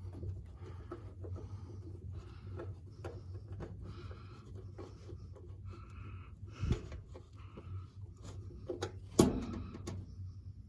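Screws being driven into the back of a washing machine's control panel: light scraping and clicking of the tool and parts, with two sharper knocks about seven and nine seconds in, over a steady low hum.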